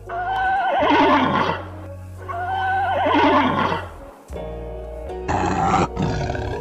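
Horse whinnying twice, each a wavering neigh about a second and a half long. In the last two seconds a tiger's growl takes over.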